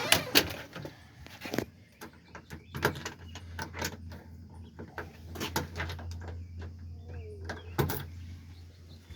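A door being opened and shut: a string of latch clicks and knocks, with a heavier thump near the end, over a low steady hum.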